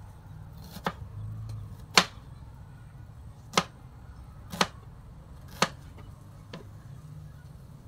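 Kitchen knife slicing a red onion on a plastic cutting board: six sharp knocks of the blade hitting the board, about one a second, the loudest about two seconds in.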